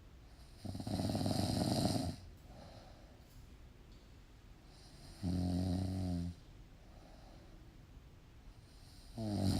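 Snoring: three loud rasping snores about four seconds apart, the first the longest and the last near the end, each followed by a fainter breath out.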